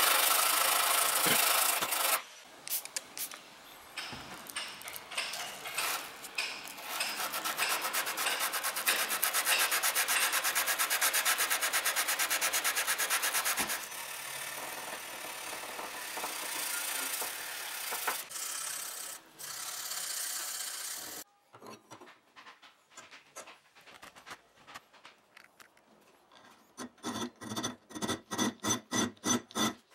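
Sandpaper rubbing back and forth on a 5160 steel knife blade in fast, even strokes. Near the end a round file rasps across the steel in regular strokes, about two or three a second.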